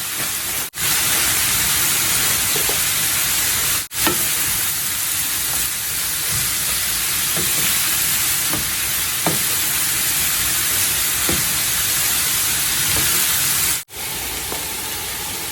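Julienned zucchini, jicama and carrots sizzling in hot olive oil in a frying pan, a steady hiss with faint scattered pops. The sound cuts out abruptly three times, briefly each time.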